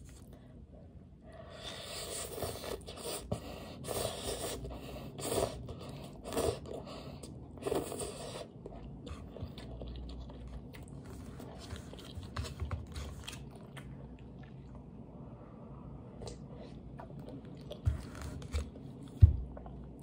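Instant cup noodles being eaten close up: noodles slurped for several seconds, then quieter chewing. Two low thumps near the end.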